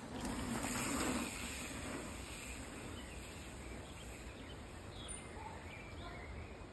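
Faint outdoor ambience: a steady hiss with a few faint bird chirps, after a brief louder rush of noise in the first second or so.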